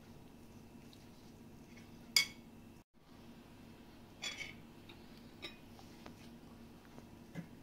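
Kitchen dishes and utensils clinking and knocking: a sharp clink about two seconds in, a longer scraping clatter past the middle, and a few light taps near the end, over a faint steady hum.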